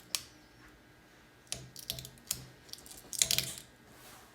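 Protective plastic film being picked at and peeled off PC motherboard parts: scattered sharp clicks, then a louder crinkly burst about three seconds in.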